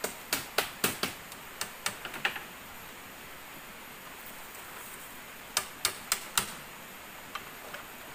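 Sharp knocks on split-bamboo floor slats: a quick run of about ten in the first two and a half seconds, a pause, then about five more and two faint ones near the end.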